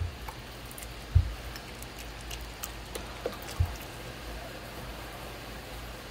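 Wet clay being worked on a potter's wheel: small wet squishes and ticks over a low steady hum, with two dull thumps, about a second in and again about three and a half seconds in.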